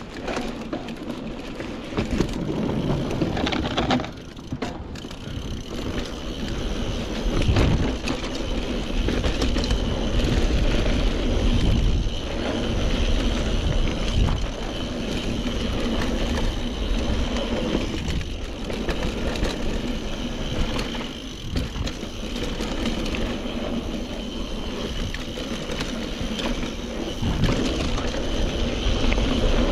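Mountain bike descending a dirt trail: tyres crunching over the ground and the bike rattling over bumps, with wind rushing over the camera microphone.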